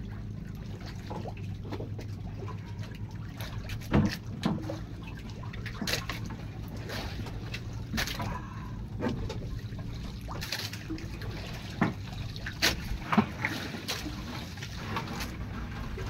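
Water lapping and trickling against the hull of a wooden outrigger boat, over a steady low hum, with scattered sharp knocks and splashes as a fishing handline is worked over the side.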